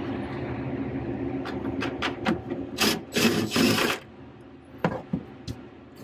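Cordless power driver running to back out a screw, with louder surges near the end as the screw lets go, then cutting off about four seconds in. A few sharp clicks follow.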